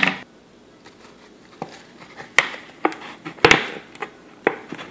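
Clear plastic 2-liter bottle crinkling and clicking as it is handled and a bendy straw is pushed into a hole in its bottom: a scattering of sharp crackles and taps, the loudest about three and a half seconds in.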